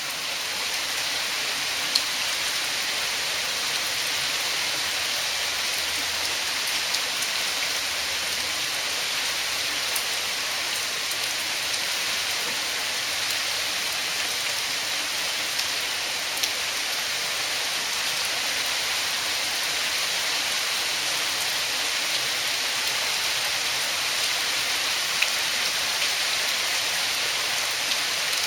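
Heavy rain falling steadily, a dense even hiss with occasional sharper drop hits.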